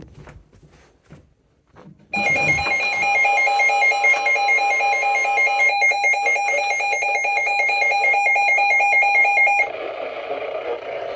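Emergency alert attention tone from a receiver: a loud, steady electronic alarm tone that starts suddenly about two seconds in and cuts off sharply about seven and a half seconds later, leaving a steady hiss. A few faint clicks come before it.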